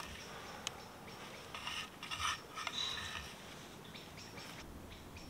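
Faint rustling and crackling of dry wood shavings handled by fingers and piled as tinder, with a few light ticks.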